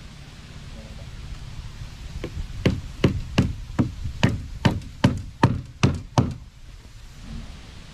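Hammer blows, about eleven in a steady run of roughly two or three a second, as a hammer nails a flattened blue plastic barrel sheet to a wooden frame. The blows start about two seconds in and stop about six seconds in.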